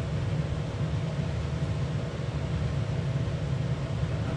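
A steady low mechanical rumble with a faint constant hum, unchanging throughout.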